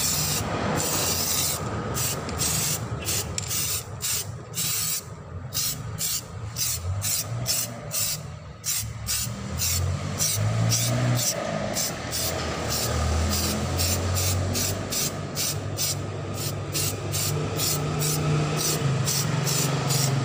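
Samurai aerosol spray can hissing as it sprays a first coat of primer onto an alloy wheel, with a low hum underneath.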